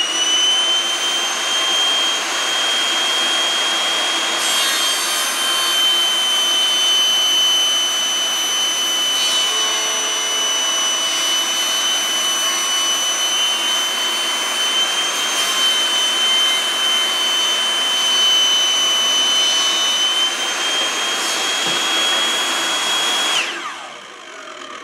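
Rock&Rocker 8-1/2-inch dustless table saw with a 60-tooth blade running at speed with a steady high whine, ripping a board lengthwise. The cut adds a rushing hiss from about four seconds in until about twenty, and the whine holds its pitch without bogging down. Near the end the saw is switched off and winds down.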